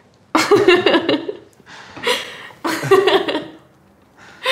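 A woman laughing in several short bursts.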